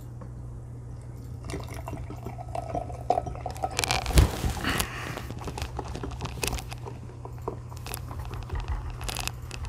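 Carbonated cream soda poured from a two-litre plastic bottle into a glass, the liquid running and splashing as the glass fills, with a louder swell about four seconds in. A steady low hum sits underneath.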